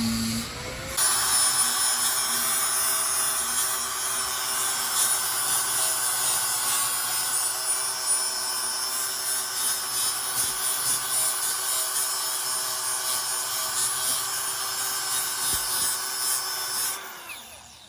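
Angle grinder grinding down a weld bead on thin steel: a steady whine over the rasp of the disc on the metal. It starts about a second in and winds down near the end.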